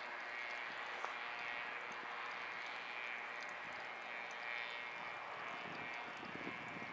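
Faint, steady drone of a light aircraft flying overhead, heard under a constant outdoor hiss.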